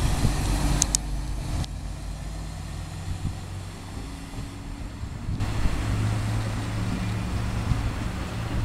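Diesel engine of an SA134 diesel multiple unit running with a steady low drone as the railcar pulls away from the platform. Two short high clicks sound about a second in.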